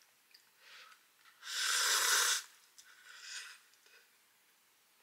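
A person slurping instant cup ramen. One loud slurp comes about a second and a half in, with softer slurps before and after it.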